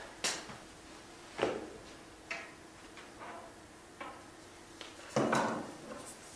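Irregular light clicks and knocks, about eight of them, from handling a golf driver while its adjustable hosel is reset with the torque wrench to change the loft. The longest, a short rattle, comes about five seconds in.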